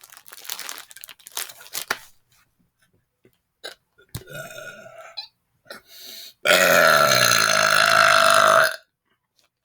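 A man's loud, drawn-out burp of about two seconds, starting about six and a half seconds in, its pitch sinking slightly. It is burped into an object to test for echo, and little echo comes back. A shorter, fainter sound comes about four seconds in.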